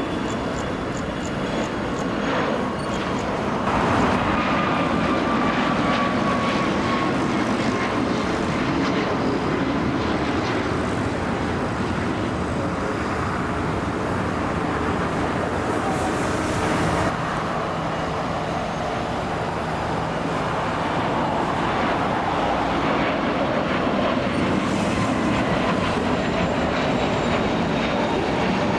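Jet airliner's engines passing close by: a loud, steady rushing noise that swells about four seconds in and holds, with a faint whine falling in pitch just after the swell.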